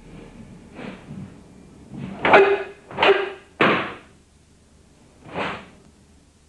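A run of about six short, sharp swishes and slaps from a karate pair performing a kihon kumite drill: gi cloth snapping and feet striking the floor with punches and blocks. The loudest comes a little over two seconds in, and one near the middle starts abruptly.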